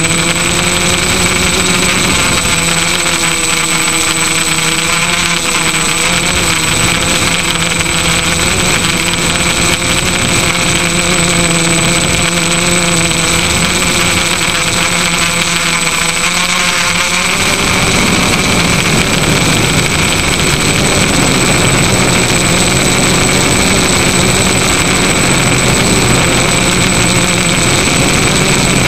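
Electric motors and propellers of an FPV drone, heard through its onboard camera: a steady buzzing whine that wavers in pitch with the throttle, over rushing air. About two-thirds of the way in, the higher tones drop away and the motor sound goes rougher.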